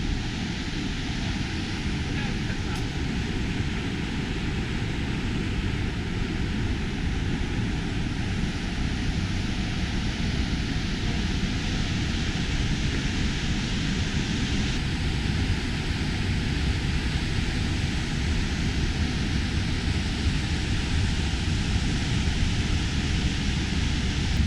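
High Force waterfall on the River Tees: the steady roar of water falling about 21 metres into a deep plunge pool.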